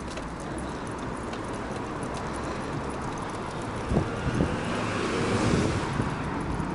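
Steady rushing noise of wind on the microphone, with a short knock about four seconds in and a louder swell of noise after it.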